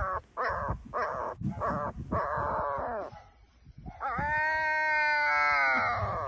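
Tiny puppy crying: several short high cries, then about four seconds in one long drawn-out wail that sags slightly in pitch.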